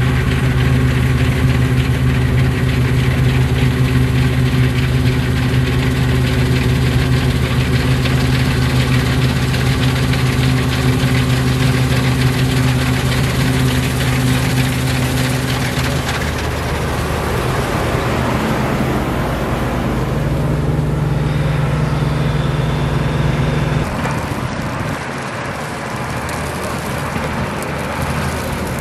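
New Holland 8070 combine harvester's diesel engine and threshing machinery running steadily as it cuts wheat. The engine note changes about halfway through, and again a few seconds before the end.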